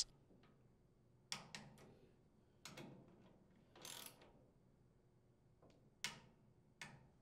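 Faint, irregular clicks and short ratcheting sounds from a torque wrench and 10mm socket tightening the cylinder head screws on a Briggs & Stratton small engine. The screws are being torqued to 220 inch-pounds.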